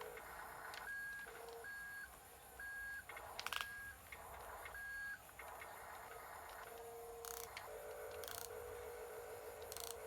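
Faint repeating electronic tones: a short high beep recurs about once a second for the first five seconds, over a lower steady tone that drops out and returns, with a few faint clicks.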